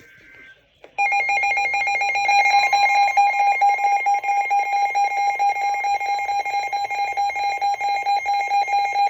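Emergency weather alert tones: a brief burst of SAME data tones, then from about a second in a loud, rapidly pulsing electronic alarm beep, joined from about two and a half seconds by the steady NOAA Weather Radio 1050 Hz warning alert tone, the signal that a new warning message is about to be read.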